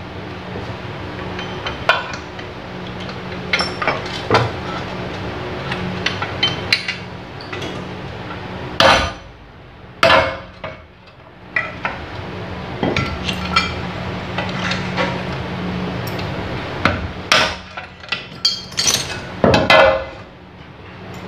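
Hammer taps and metal clinks as hand tools work parts out of a gondola hoist's metal housing: irregular light strikes with a few heavier blows, over a steady low hum.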